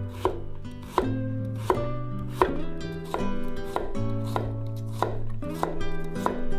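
Chef's knife chopping a carrot on a wooden cutting board: sharp knocks of the blade against the board, a little faster than one a second, over background guitar music.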